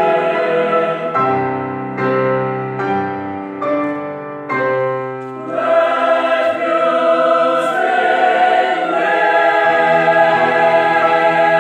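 Mixed choir singing with grand piano accompaniment. A softer stretch of separate, decaying chords comes about a second in, then the full choir swells back to a loud, sustained chord a little past halfway and holds it.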